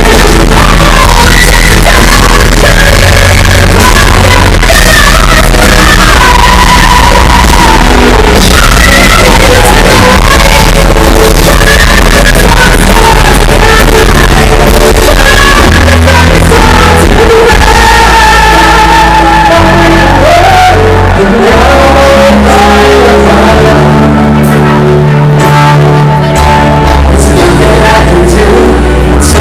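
Loud amplified live band: women singing lead with electric guitars and bass, in a large hall.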